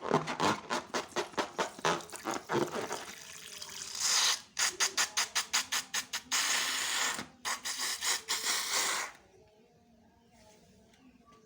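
Slime being mixed and worked by hand: quick sticky squelching clicks, several a second, broken by two short hissing spells, then it goes faint in the last couple of seconds.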